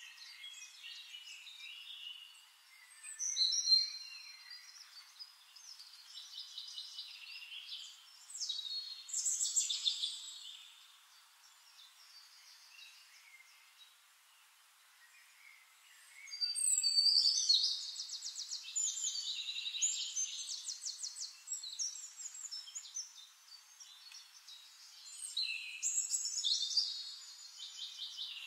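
Birds chirping and singing in bursts of quick trills and short glides, with a quieter spell in the middle and the busiest stretch just past halfway.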